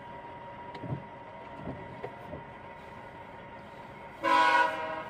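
A CSX freight locomotive's multi-note air horn sounds one short blast about four seconds in, under a second long.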